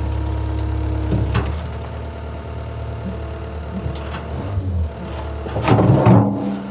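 Skid steer loader engine running steadily, with a short knock a little over a second in and a louder burst of clanking near the end.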